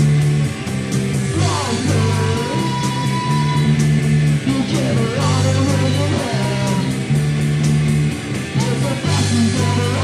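Live punk rock band playing: electric guitar, bass and drums, with a singer's voice sliding up and down over the bass line.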